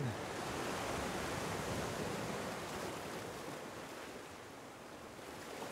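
Sea surf washing against rocks: a steady rushing hiss of water that eases a little over the last couple of seconds.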